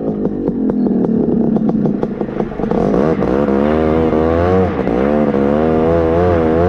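Honda FL350 Odyssey buggy's engine running under load, its pitch rising and falling as the throttle changes, with rattling and clattering over the first few seconds.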